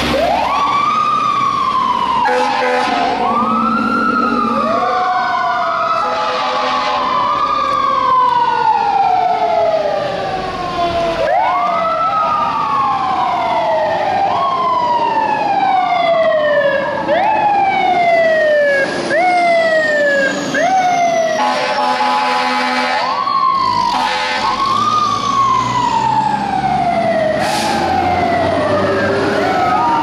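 Fire apparatus sirens wailing, their pitch rising quickly and falling slowly again and again, with more than one siren overlapping. Air horn blasts cut in among them, the longest about two-thirds of the way through.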